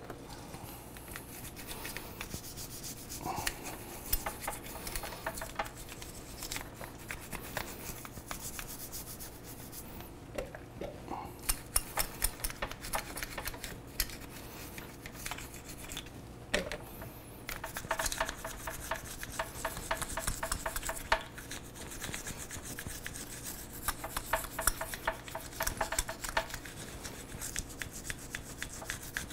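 Small brush scrubbing the exposed pistons of a four-piston motorcycle brake caliper, in quick back-and-forth strokes that come in runs of a few seconds with short pauses between.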